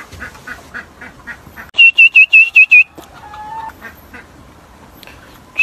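Ostrich chicks peeping: faint high peeps about three a second, then a loud run of six quick chirps about two seconds in, a few thin held whistles and one more loud chirp at the end.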